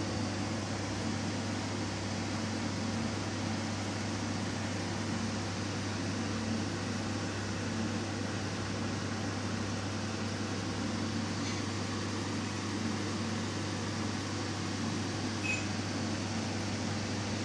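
Aquarium pump running: a steady low hum with an even whirring hiss over it.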